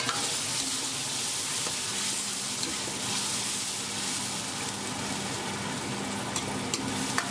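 Sauce sizzling in a hot iron wok just after water is added, stirred with a metal ladle, with a few clicks of the ladle against the wok near the end. A low steady hum joins about two seconds in.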